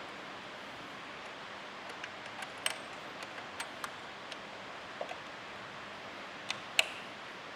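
Scattered light clicks and taps from handling a chainsaw chain and sharpener, over a steady background hiss. The two loudest clicks come about two and a half seconds in and near the end.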